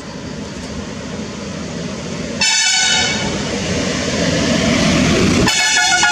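A vehicle approaching with a steadily rising rumble, sounding its horn twice: a short blast about two and a half seconds in, and another near the end.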